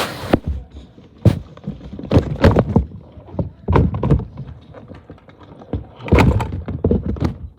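Fidget toys, pop-it poppets among them, being tossed into a bin: irregular soft thuds and clattering knocks, a dozen or so, some close together.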